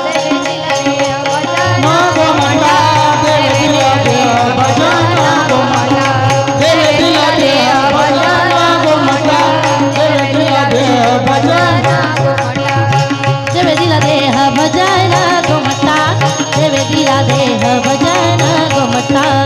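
Marathi devotional kirtan singing: a woman's solo voice singing a melodic line, accompanied by hand-drum playing and a steady held drone underneath.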